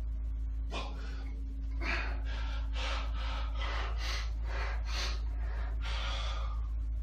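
A man breathing hard and fast while straining through pull-ups, in short forceful breaths about two a second that start about a second in.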